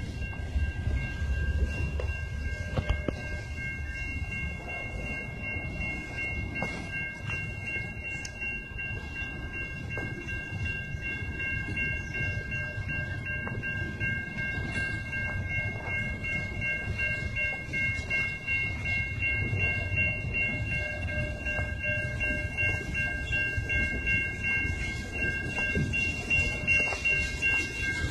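Loaded coal hopper cars of a freight train rolling by with a steady low rumble, and a steady high-pitched ringing tone held over it.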